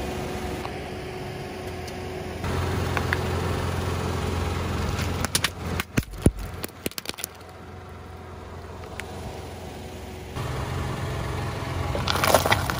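Car engine idling at a low steady hum while the car's tyre crushes small objects, with a run of sharp cracks and snaps a little past the middle and another burst of crunching near the end.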